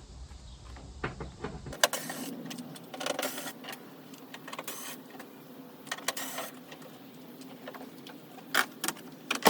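Electric driver with a T30 Torx bit running, backing bolts out of a pickup's tailgate cover: a steady motor whir with clicks and clatter of the bit and bolts.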